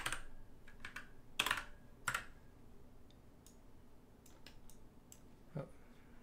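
Computer keyboard keystrokes: short irregular clicks, two louder strokes about one and a half and two seconds in, then sparser, lighter taps.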